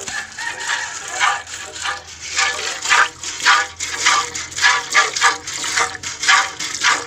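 Cow being milked by hand: short squirts of milk in a quick rhythm, about two to three a second, as the teats are squeezed and pulled in turn.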